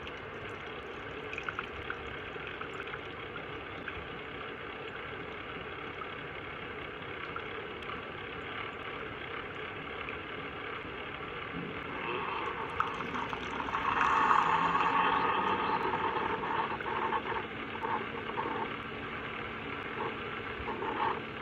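Keurig K-Cafe single-serve coffee maker brewing a shot: a steady hiss and hum from the machine, then coffee streaming into the cup, louder from about twelve seconds in and loudest a couple of seconds later. A steady low hum joins near the end.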